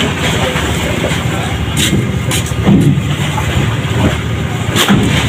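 An engine running steadily under a few sharp knocks and clatters of wooden planks being handled on the deck.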